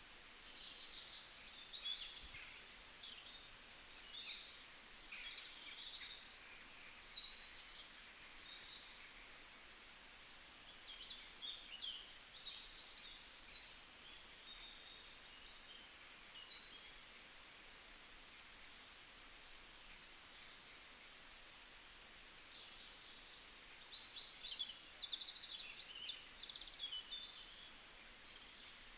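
Several birds singing and calling at once, a busy chorus of high chirps and quick trills over a faint hiss.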